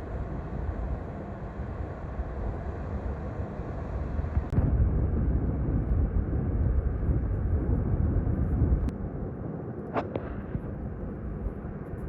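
Steady low rumble of wind and ocean surf at the shore. It gets louder from about four and a half seconds in until about nine seconds, and a single sharp click comes near ten seconds.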